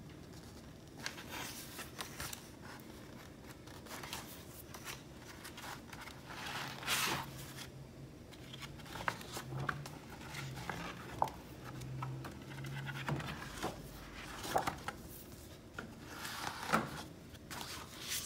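Paper pages of a booklet being turned and handled: irregular rustles and swishes, the loudest about seven seconds in and again near the end.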